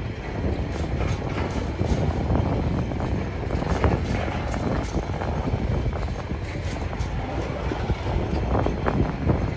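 Freight train container wagons rolling past at close range: a steady rumble of steel wheels on rail, with scattered sharp clacks.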